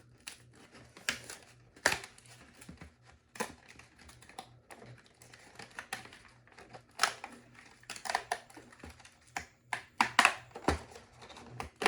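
Cardboard and plastic packaging being handled as a smoke alarm is pulled out of its box: scattered clicks, scrapes and rustles.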